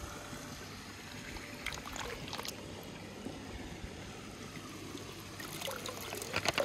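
Swimming-pool water sloshing and lapping as a plastic toy shovel moves through it, with a burst of splashing and dripping near the end as the shovel lifts out of the water.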